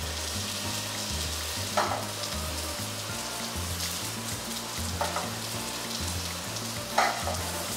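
Turkey breast sizzling steadily in olive oil in a frying pan while it is slowly seared. Metal tongs clink against the pan three times, loudest near the end.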